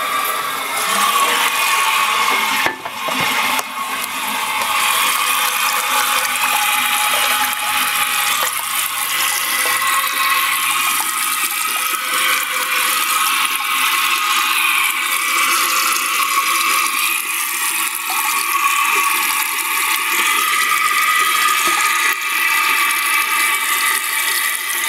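1988 American Standard toilet tank refilling after a flush: water hisses steadily through the tank's fill valve, with a thin steady whistle over it.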